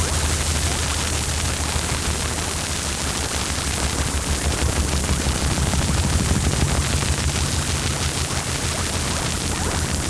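Noise music: a dense, steady wash of hiss and static over a constant low hum.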